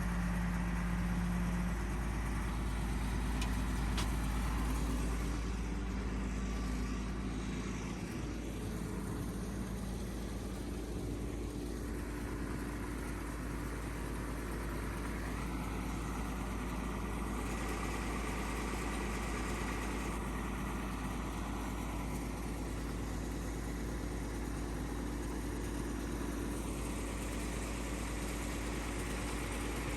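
Bulldozer's diesel engine running steadily with a deep rumble, its pitch shifting a few times as the engine speed changes.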